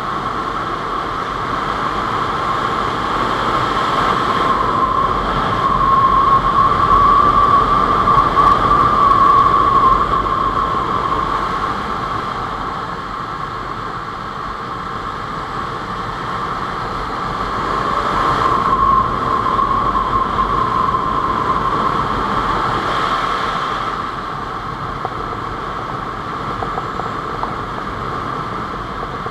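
Honda CBR600F4i inline-four sport motorcycle ridden at road speed, heard from an onboard camera as a steady rush of wind over the microphone with the engine under it. It swells louder twice, about four seconds in and again around eighteen seconds.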